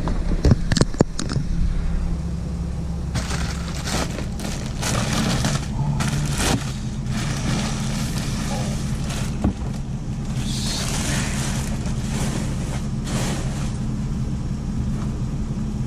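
Clear plastic bag rustling and crinkling in bursts as it is pulled off a new tool bag, after a few knocks near the start. A steady low hum runs underneath.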